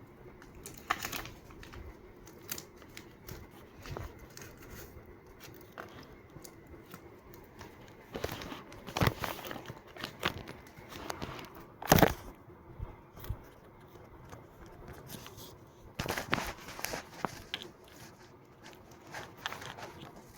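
Paper crinkling and tearing as it is handled, in short irregular spells. The loudest comes about twelve seconds in.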